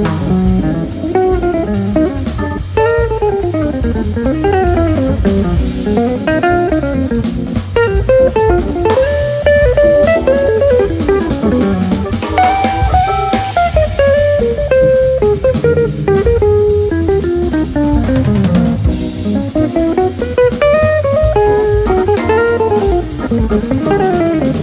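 Jazz quartet playing live: electric guitar running quick single-note lines that rise and fall over a steady drum kit.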